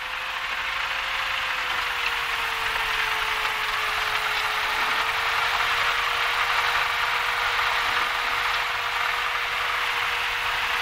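Cessna 172 cabin noise while taxiing on grass: the engine and propeller running at low taxi power, heard as a steady hiss with one steady hum-like tone that wavers slightly in pitch in the first two seconds and then holds.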